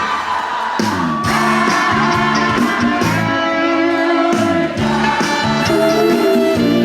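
Live trot band accompaniment playing an instrumental passage, with held melody notes over a steady beat.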